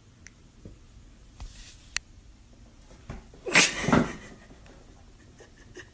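A domestic cat's short, loud cry about three and a half seconds in, as it goes off the edge of a sofa. Before that there are only a few faint clicks.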